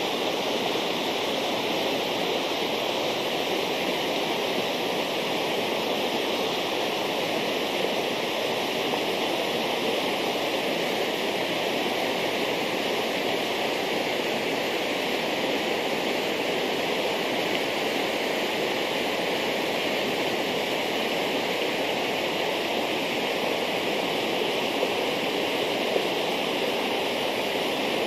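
Storm-swollen river rushing in whitewater cascades over rocks and debris: a steady, even rush of water.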